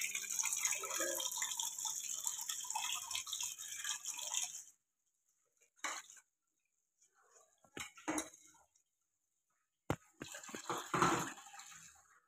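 Kitchen tap running onto dishes in a stainless-steel sink for about four seconds, then stopping. A few clinks of crockery follow, and near the end the water runs again with plates clattering in the sink.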